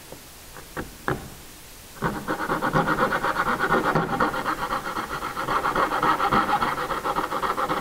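A few light taps, then from about two seconds in a hand coping saw cuts a cope in the end of a piece of baseboard with fast, steady back-and-forth strokes, its fine blade rasping through the wood.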